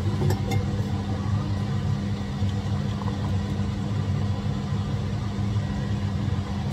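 Milky tea being poured from a saucepan through a tea strainer into a mug, over a steady low hum and rumble.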